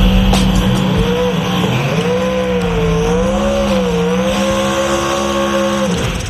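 Drag-race burnout: an engine held at high revs while the spinning rear tyres squeal, the pitch wavering up and down. It cuts off sharply about six seconds in as the burnout ends.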